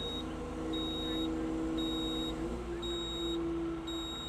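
XCMG XE490DK 50-ton excavator's engine and hydraulics running steadily, their pitch stepping up slightly about halfway through as the bucket is worked. A high electronic warning beeper sounds about once a second, each beep lasting about half a second.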